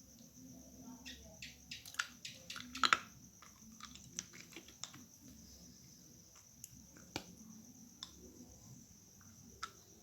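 Scattered small clicks and soft rustles, thickest and loudest about two to three seconds in, then sparser, over a steady high-pitched hum.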